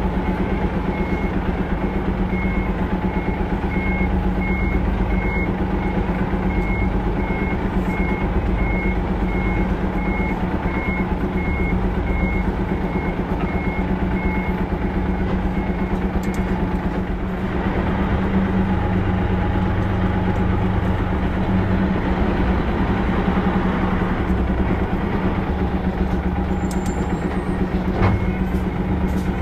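Hino Profia semi-trailer truck reversing: its diesel engine runs steadily under the repeated beeping of the reversing alarm. The beeping stops about halfway through and starts again near the end.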